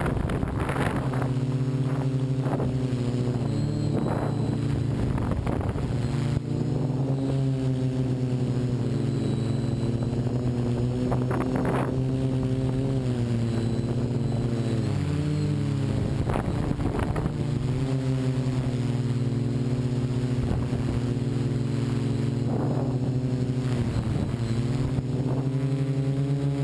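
Multirotor drone's electric motors and 12-inch propellers running with a steady buzzing hum whose pitch dips and recovers now and then as the throttle changes. Gusts of wind buffet the microphone again and again.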